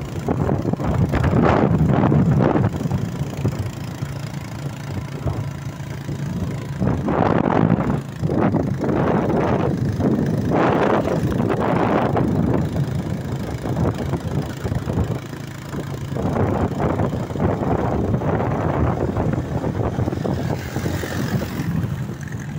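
Motorcycle engine running under way on a dirt track, its level rising and falling in surges every few seconds, with wind noise on the microphone.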